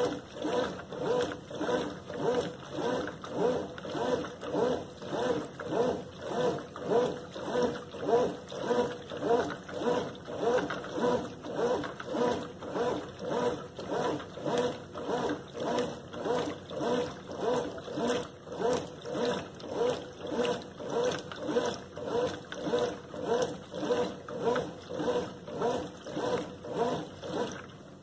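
Consul Maré CWL10 top-loading washing machine agitating a load of cloths in soapy water: the agitator sloshes back and forth in an even rhythm of about two strokes a second, then stops right at the end.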